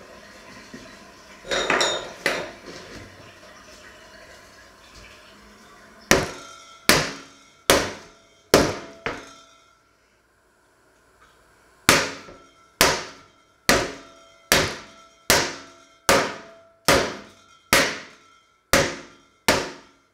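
A metal pot striking repeatedly, about once a second, each blow leaving a short metallic ring: pounding a thin slab of raw red meat flat on a wooden cutting board. Four strikes, a short pause, then ten more, after a few clattering knocks near the start.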